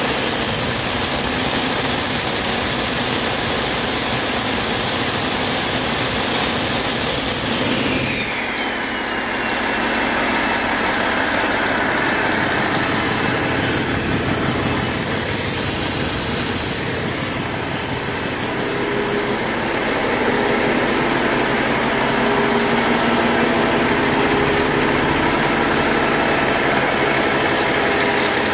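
2015 Cummins ISX15 inline-six diesel engine on a test run, held at raised revs with a high turbocharger whistle. About seven seconds in the revs drop back to idle, the whistle falling in pitch, and it then idles steadily.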